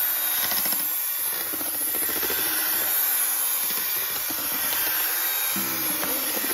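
Electric hand mixer running at high speed, its beaters whipping eggs and sugar in a stainless steel bowl with a steady whirr. The batter has reached the white, thick stage.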